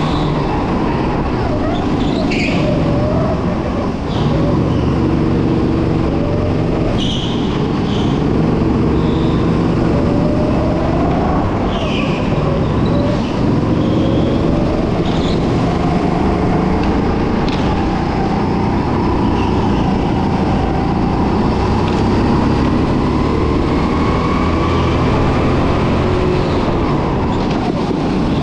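Racing go-kart engines running on board a kart in traffic, the engine pitch rising and falling continually as the karts speed up and slow for corners, with several engines heard at once.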